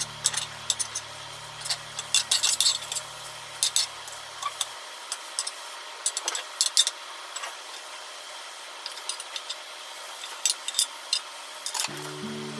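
Metal slotted turner clicking, tapping and scraping against a rectangular tamagoyaki pan as a rolled egg omelette is turned, in quick irregular knocks over a faint steady hiss.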